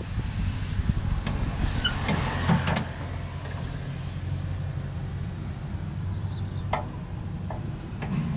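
Hyster H7.0FT LPG forklift engine idling steadily, heard close at the open engine compartment, with a few sharp clicks and knocks about two seconds in.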